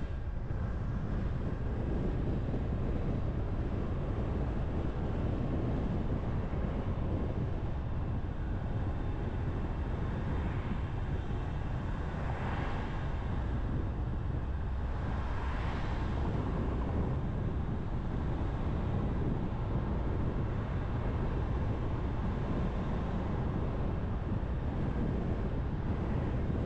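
Steady road noise of a car cruising on an expressway: low tyre rumble and running noise. About halfway through come two brief whooshes, about three seconds apart.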